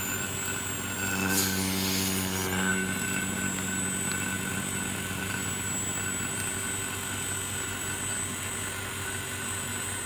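Steady machine hum from a phone-screen separator workstation. About a second and a half in, a brief hissing rush lasts about a second.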